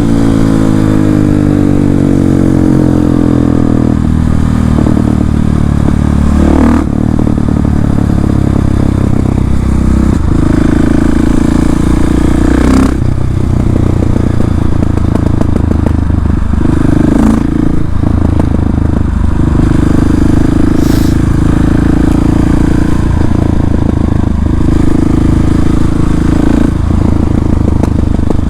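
KTM 690 SMC R's single-cylinder engine through an open Arrow exhaust with the dB-killer removed, ridden on the road. The revs fall away over the first few seconds, then it pulls steadily, with a few sharp cracks from the exhaust along the way.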